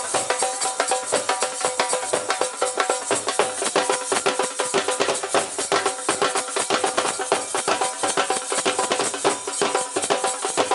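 Dhol, a two-headed rope-tensioned barrel drum, beaten in a fast, steady rhythm, with a steady held tone sounding above the drumming.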